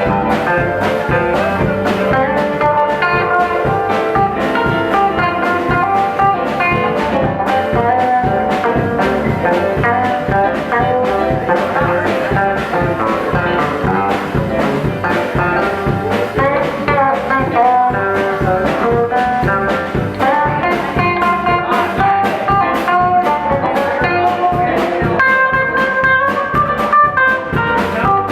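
Live band playing an instrumental passage: guitar lines over a steady drum beat.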